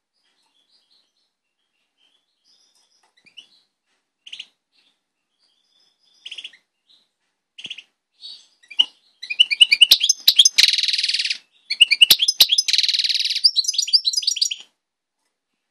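Finch singing: a few scattered chirps, then from about nine seconds in a loud, fast twittering song with two long buzzy trills, stopping a second before the end.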